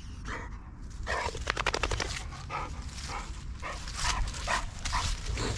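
Boxer dog barking in a series of short barks, starting about a second in.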